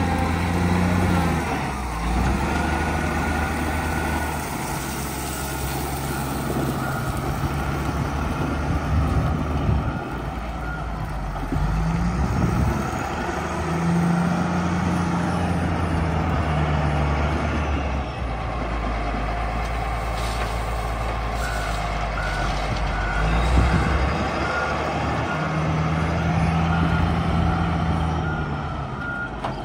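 Caterpillar 966F wheel loader's diesel engine working, its revs rising and falling again and again, with the reversing alarm beeping in short, even pulses in the second half.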